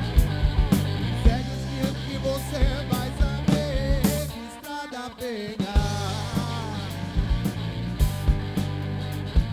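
Blues-rock band playing an instrumental passage: bass and drums under a lead line with bending notes. The bass and drums drop out for about a second midway, then come back in.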